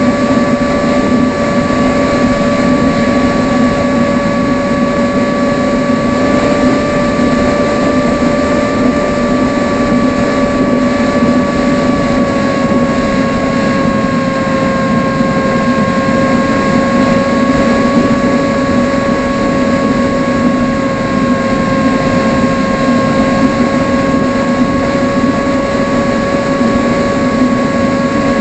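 Electric motor and propeller of an AtomRC Dolphin RC plane whining steadily in flight, with wind rushing over the onboard microphone. The pitch drops a little about twelve seconds in, then holds.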